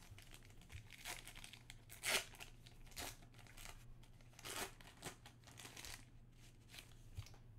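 The wrapper of a 1990-91 NBA Hoops basketball card pack being torn open and crinkled by hand: a string of short crackly rustles, the loudest about two seconds in, thinning out after about six seconds.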